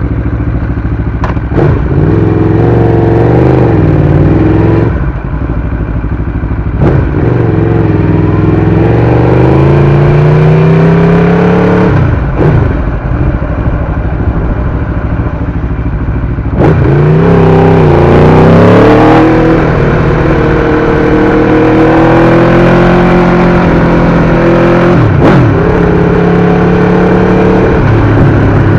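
Aprilia RSV4's V4 engine through an SC-Project exhaust, pulling up in pitch over several seconds and dropping sharply at each of about six gear changes, with some steadier stretches between.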